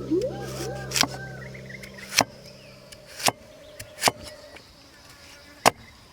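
Knife chopping on a cutting board: five sharp strikes spaced roughly a second apart.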